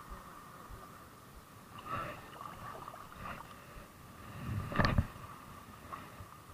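Clothing and a hand rubbing and bumping against a body-worn camera's microphone, a few soft knocks with the loudest a little before five seconds in, over low wind and water noise and a faint steady high tone.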